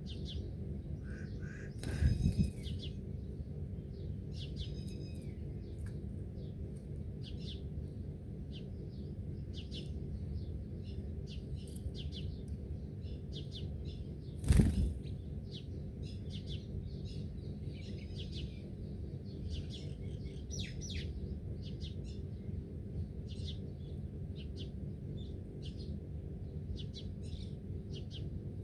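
Small birds chirping, with many short calls throughout over a steady low rumble. Two loud, sudden bumps break in, about two seconds in and again near the middle.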